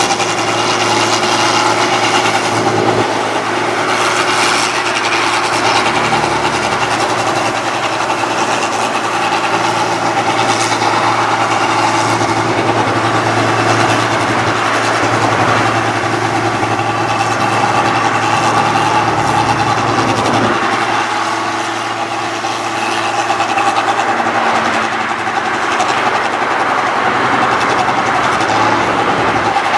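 A 1545 S rice combine harvester running steadily under load while cutting and threshing rice. Its engine and threshing machinery give a loud, constant hum with several steady tones.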